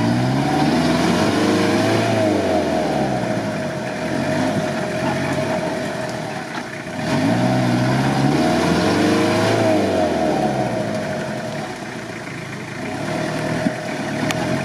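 Toyota Land Cruiser 70-series engine revving hard in two long surges, the revs rising and falling, as its mud tyres spin in deep mud. The truck is stuck with no axle lockers, so the wheels spin without gaining traction.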